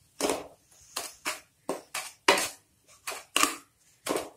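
Wooden spatula scraping and stirring powdered sugar into mawa in a kadai, in a series of short strokes about two a second.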